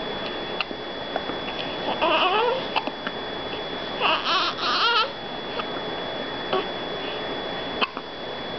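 Newborn baby fussing, with two short high-pitched cries about two seconds in and again around four to five seconds in, and small sharp hiccups in between, the strongest near the end.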